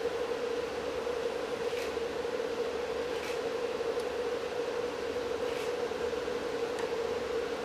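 Steady room tone: a constant hum with an even hiss, and a few faint soft ticks.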